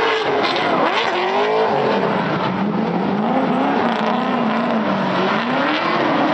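Two V8-powered Nissan drift cars running in tandem, their engines revving up and down in pitch over the hiss of tyres sliding sideways.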